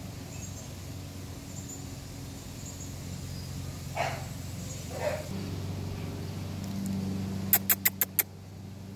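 An American Bully puppy gives two short whimpers about four and five seconds in, over a steady low hum. Near the end come five sharp clicks in quick succession.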